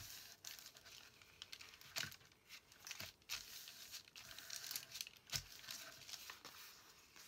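Faint rustling and crinkling of paper as a freshly glued paper envelope is smoothed down and handled on a sheet of parchment paper, with a few light taps.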